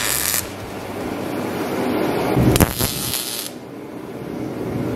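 MIG welder tacking steel bracket tabs: one burst of hiss ends just after the start, and a second burst of about a second comes about two and a half seconds in.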